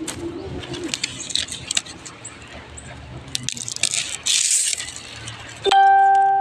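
Coconut leaf midribs rustling, with light clicks and scrapes as they are stripped by hand for a walis tingting broom. Near the end a loud steady horn-like beep starts suddenly.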